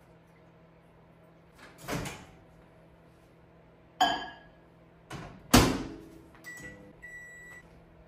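Microwave oven being loaded and started: a knock, a dish set down inside with a short ringing clink, the door shut with a bang (the loudest sound), then keypad beeps, the last one held for about half a second.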